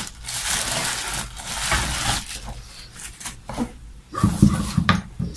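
Plastic parcel packaging rustling and crinkling as it is opened, then a few short, louder low rough sounds about four seconds in.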